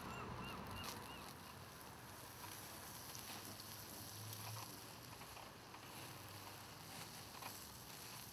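Bacon and sausage sizzling faintly on a disposable foil barbecue, with a few light clicks as the utensil touches the grill mesh. A rapid run of squeaky calls, about four a second, is heard during the first second.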